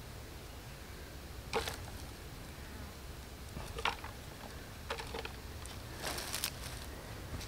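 Hands scraping and rustling through loose soil and handling a plastic container while picking up worms: a few short scrapes and crinkles, the longest cluster about six seconds in, over a low steady outdoor rumble.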